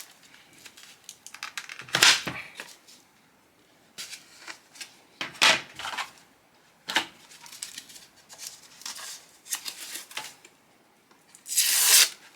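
A plastic phone case and its packaging being handled: irregular short rustles, clicks and scrapes, the loudest about two seconds in and near the end.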